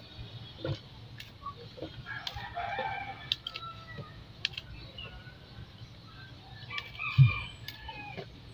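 A rooster crowing, once about two seconds in and again near the end. Short knocks as saba bananas go into a metal cooking pot, and a loud thump about seven seconds in.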